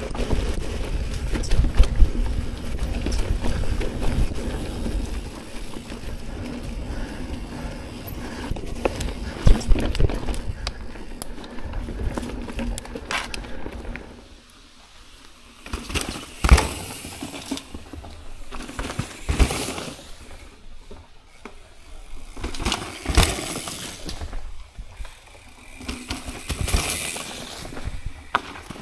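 Mountain bike rolling over a leaf-covered dirt trail: tyre noise and rattling knocks from the bike over roots and rocks. A steady rumble fills the first half, then about halfway through it turns quieter, with scattered sharp knocks.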